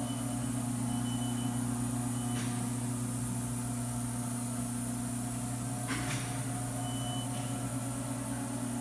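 Fadal 4020 vertical machining center running under power: a steady hum, with a few short, faint high-pitched beeps and a couple of sharp clicks, one about two and a half seconds in and a louder one about six seconds in.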